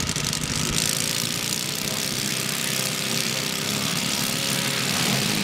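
Valach Motors VM 120 two-cylinder four-stroke petrol engine of a giant-scale RC Zlin XII model plane idling steadily on the ground, propeller turning.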